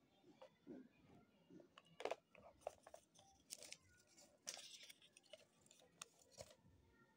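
Faint handling noises: a folded paper instruction leaflet rustling as it is moved, with light clicks and taps from a plastic smartwatch charging cradle and its cable. The sounds are scattered, with the loudest rustles about 2 seconds in and again about halfway through.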